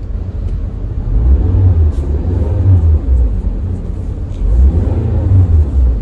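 Car engine being revved, heard from inside the cabin: a deep rumble that swells and eases several times as the accelerator is pressed and let off.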